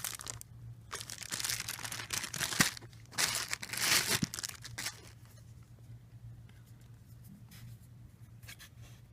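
Packing wrap being crumpled and torn as a boxed statue piece is unwrapped: loud rustling bursts through the first half, then only a few faint clicks and handling sounds.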